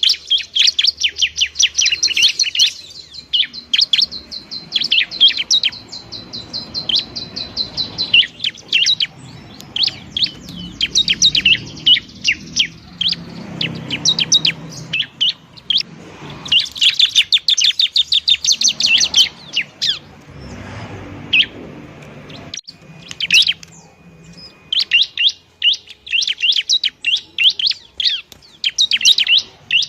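Bar-winged prinia (ciblek) singing busily: fast runs of sharp high chirps in repeated bursts, densest near the start, in the middle and near the end. A thin steady high tone sits under the chirping for the first several seconds.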